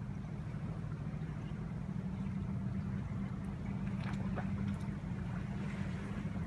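A motor running steadily with a low, even hum, and a few faint clicks about four seconds in.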